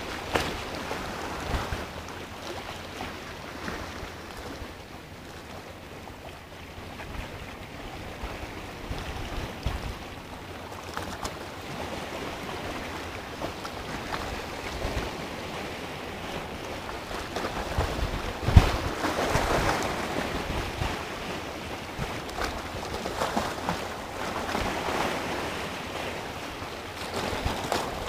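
Sea waves washing and breaking around a rock, with low buffets of wind on the microphone. The surf swells louder a few times, most strongly about two-thirds of the way through.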